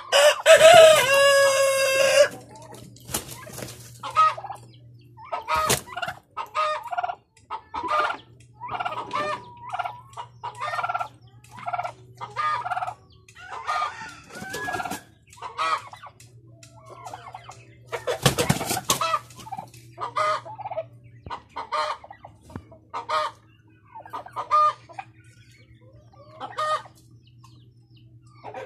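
Australorp rooster crowing once at the start, a loud call of about two seconds, followed by short clucking calls about once a second with pauses between. One louder, noisier burst comes about eighteen seconds in.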